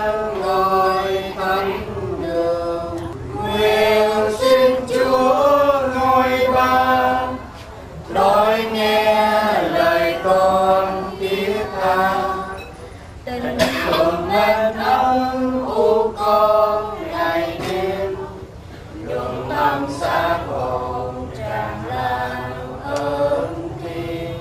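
A group of voices chanting a Vietnamese Catholic prayer together in unison, a sung recitation in long phrases with short pauses between.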